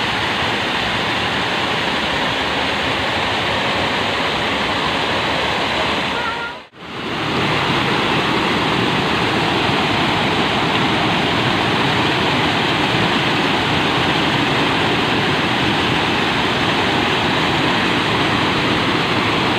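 The Rhine Falls waterfall pouring: a loud, steady rush of falling water. It cuts out for a split second about seven seconds in, then goes on as before.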